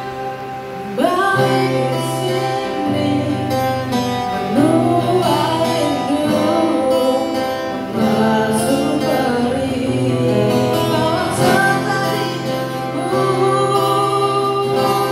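Live acoustic pop ballad: a singer's amplified voice over acoustic guitar accompaniment, the vocal line coming in about a second in.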